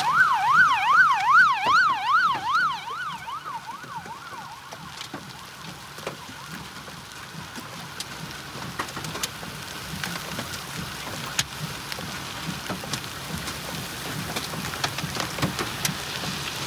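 An emergency vehicle's siren yelps quickly up and down and fades out over the first few seconds. It leaves heavy rain and hail pelting the ground, with scattered sharp ticks of hailstones striking.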